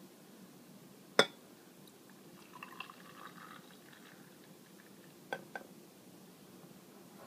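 Coffee poured from a glass decanter into glass mugs: a sharp glass clink about a second in, a faint trickle of pouring a couple of seconds later, and two light clinks a little after the five-second mark.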